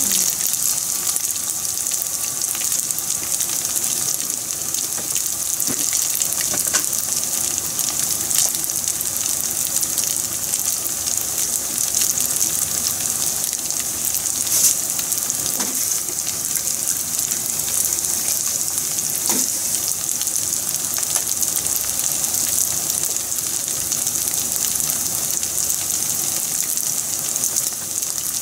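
Breaded squid rings frying in hot oil in a frying pan: a steady, high sizzle of fine crackling, with a few sharper pops.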